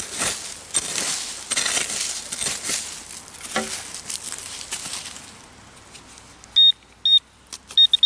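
Rustling and crackling in dry leaves and brush for about five seconds, then a Garrett AT Pro metal detector gives several short, high beeps as its coil passes over a buried metal target.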